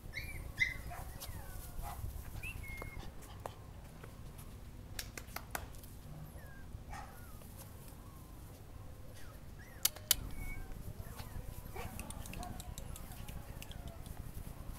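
A small dog's high-pitched whimpers and short yips, scattered through, with a few sharp clicks, the loudest about ten seconds in.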